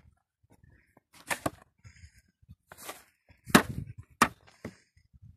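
Snow shovel scooping and scraping snow off stone steps: a run of about six short scrapes and knocks of the blade, the loudest two a little past the middle.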